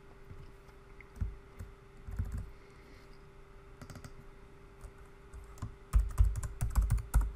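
Computer keyboard typing: a quick run of keystrokes near the end, with a few scattered clicks before it, over a faint steady hum.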